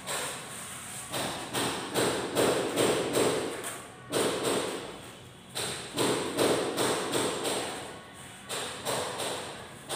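Repeated sharp knocks, like hammer blows, coming in short runs of two to four a few seconds apart, each followed by a short ringing decay.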